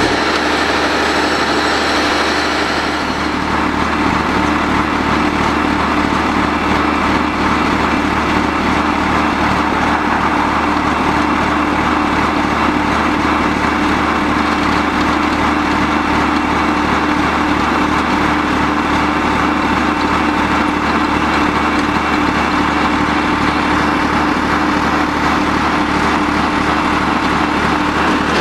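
The diesel engine of a Kleemann Mobirex EVO 110 tracked impact crusher running steadily as the machine drives onto a lowboy trailer. There is an extra high hiss in the first few seconds.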